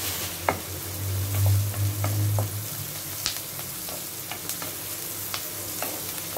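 Chopped onions, curry leaves and dried red chillies frying in oil in a kadai, sizzling steadily while being sautéed, with a wooden spatula stirring them and clicking and scraping against the pan at irregular moments. A low hum sits underneath for the first two or three seconds.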